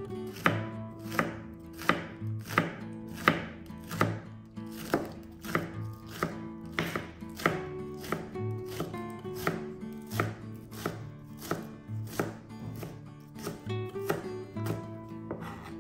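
Chef's knife chopping green onions on a plastic cutting board: steady, even knife strikes, about one and a half a second.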